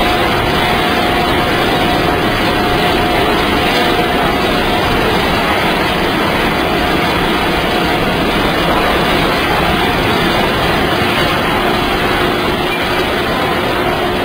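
Steady running noise of a drying plant's machinery and conveyors, a dense mechanical hum with a faint steady whine in it.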